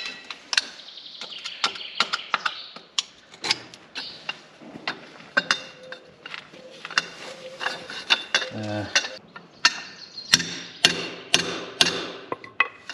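Steel tools clicking and knocking on a rotary harrow's tine-holder bolt as a wrench is worked on it and it is struck with a hammer, the bolt being seized very tight. The sharp metal knocks come thick and fast from about ten seconds in.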